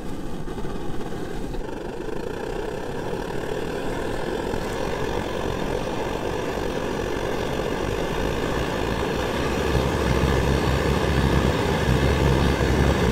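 Pressurized liquid-fuel camp stove burning at full flame with a steady rushing noise and a low rumble, gradually getting louder.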